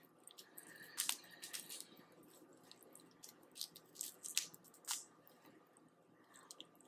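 Soft-shelled boiled crawfish being pulled apart and eaten close to the microphone: a scattering of short, wet squishes and smacks. There is no shell cracking, because these young crawfish have very soft shells.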